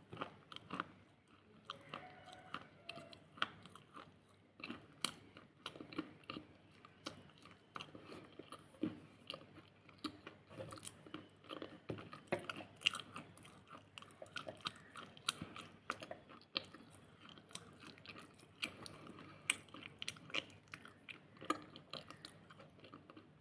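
Close-up crunching: a hard, brittle item being bitten and chewed, with many sharp irregular crunches.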